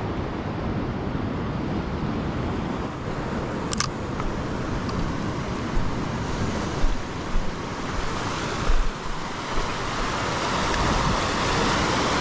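Surf washing over coastal rocks, with wind on the microphone. A sharp click comes about a third of the way in, and a few dull thumps follow in the middle. The wash swells in the second half.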